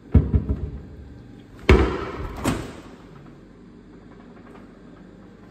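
Wooden kitchen cabinet doors knocking shut in a quick run of knocks. About a second and a half later comes a louder clunk with a rattling tail as the dishwasher is opened, its wire racks rattling.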